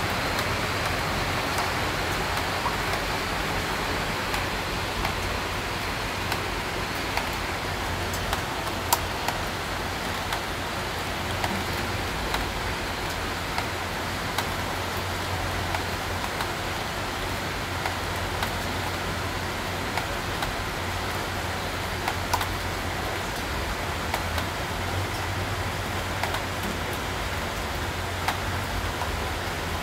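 Steady rain hiss with scattered sharp drop ticks, over a low steady hum.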